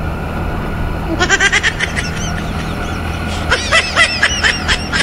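TVS Ntorq 125 scooter's single-cylinder engine running steadily at highway speed, with wind noise. Over it come two runs of rapid, high chirps, about a second in and again near the end.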